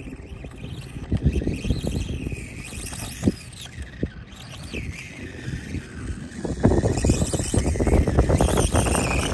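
SkyRC SR5 1/4-scale RC dirt bike's electric motor whining, its pitch rising and falling with the throttle, under gusty wind noise on the microphone; it grows louder about two-thirds of the way through.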